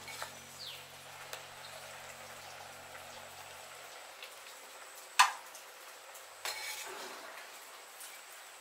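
Pot of potato chunks boiling with a soft steady hiss. About five seconds in a metal ladle strikes the pot with one sharp clink, followed a second later by a briefer clatter as the potatoes are scooped out.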